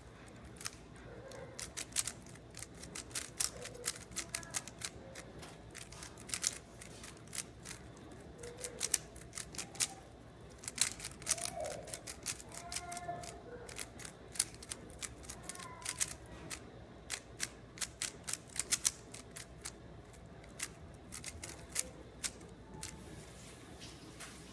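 Plastic clicking of a 3x3 Rubik's cube being turned fast by hand: irregular sharp clacks of the layers snapping into place, several a second and in quick flurries, with short pauses between runs of turns.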